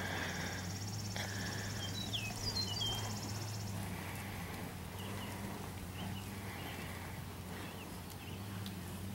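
Outdoor rural ambience: a high, finely pulsing insect trill for about the first four seconds, a few quick bird chirps around two to three seconds in, over a steady low hum.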